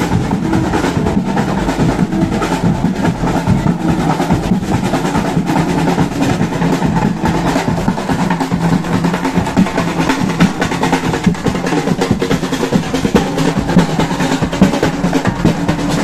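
Carnival walking group's percussion section playing: large painted barrel drums and snare drums beating a fast, dense, steady rhythm with snare rolls, over a held low note.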